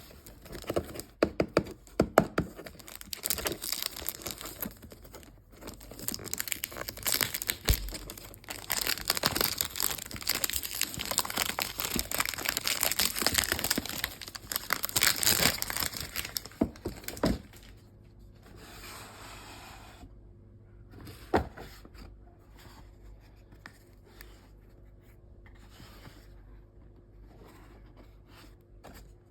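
Perfume packaging being unwrapped and opened by hand: wrapping tearing and crinkling, with many small clicks and knocks of handling. After about seventeen seconds it turns to quieter handling, with a single sharp knock a few seconds later.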